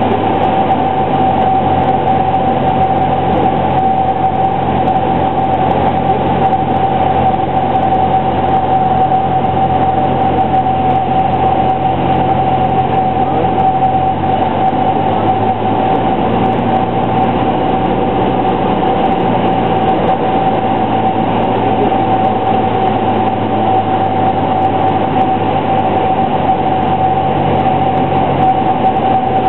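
Single-engine light aircraft's piston engine and propeller droning steadily, heard inside the cockpit, with a steady high tone over it. The low engine note shifts pitch about halfway through and again a few seconds later.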